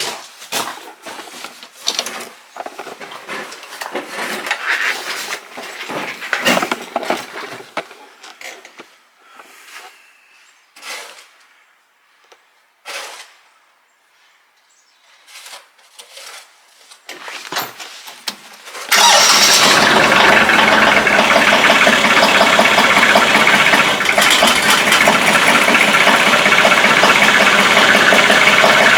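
Scattered knocks and clatter, then about two-thirds of the way in the Kioti CK2610 tractor's three-cylinder diesel engine comes on suddenly and loud and runs steadily, warming up in the cold.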